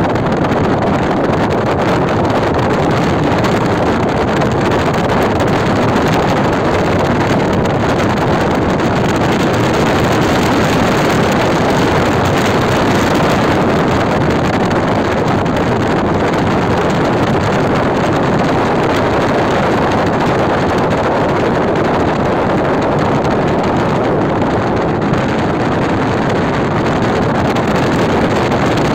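Steady rush of wind and road noise from a moving car, heard at its open side window, with wind buffeting the microphone.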